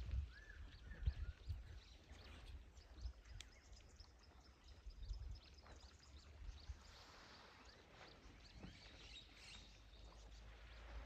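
Faint outdoor riverside ambience: an irregular low rumble under scattered faint bird chirps that are busiest near the end.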